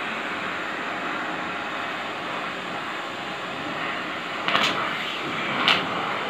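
Stick-welding arc crackling and hissing steadily, with two sharper, louder crackles near the end.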